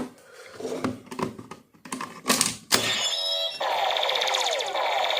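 Hard plastic clicks and knocks as the Eternal T1 memory is handled and set into a Kamen Rider W CSM Lost Driver toy belt. About three and a half seconds in, the belt's speaker starts playing its electronic sound effect, a steady tone with repeated falling sweeps.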